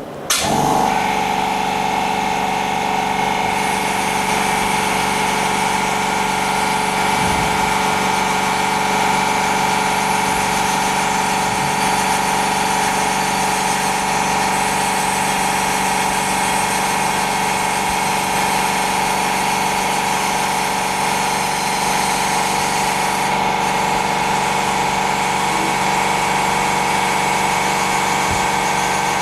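Small electric motor of a glue-removing tool, switched on and running steadily with a constant whine while it clears leftover OCA glue off an OLED screen.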